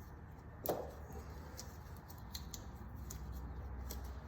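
Wrench on a new spin-on oil filter, with a sharp knock about a second in followed by scattered light clicks as the filter is tightened against its seal.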